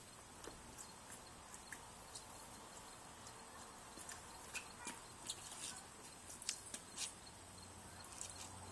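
Faint, scattered short clicks and taps, thickest between about four and seven seconds in, from a toddler in sandals scrubbing a plastic ride-on toy Jeep with a wash mitt and stepping around it on wet pavement.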